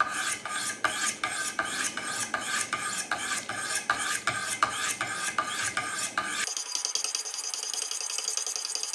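Wicked Edge guided sharpener's 400-grit diamond stones stroked back and forth along a steel knife blade, a rasping scrape at about three strokes a second. About six seconds in, the strokes stop and a steady high hiss takes over.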